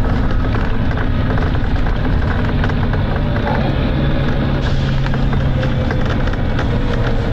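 Volvo B9TL double-decker bus's straight-six diesel engine running hard under load, heard from inside the bus, with road noise and rattling clicks throughout.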